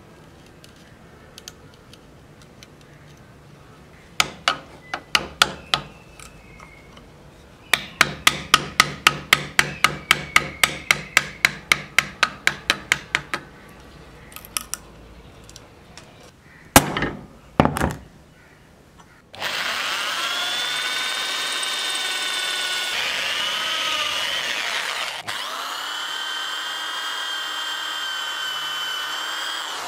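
Hand chisel cutting a slot into a wooden handle blank: a few sharp knocks, then a fast run of strikes about four a second, then a few more. About two-thirds of the way in, an electric hand drill starts and runs steadily with a whine, drilling into the wooden handle.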